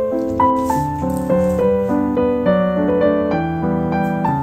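Background music: a piano melody of separate notes over lower accompanying notes.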